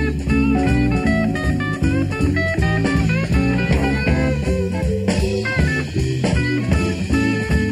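Southern rock band playing live in a blues-rock style: electric guitar running quick lead lines over bass guitar and a drum kit keeping a steady beat.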